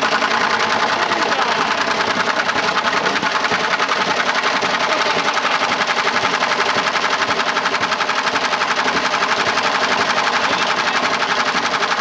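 Washing machine spinning with a brick loose in its drum: the unbalanced drum and brick bang in a loud, fast, even rattle of many knocks a second.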